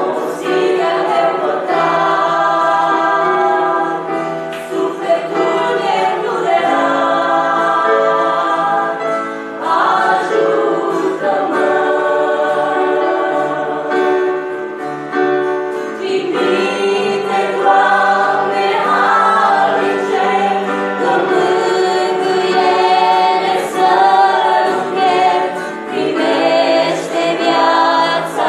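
Two women singing a hymn through a microphone, accompanied by a keyboard.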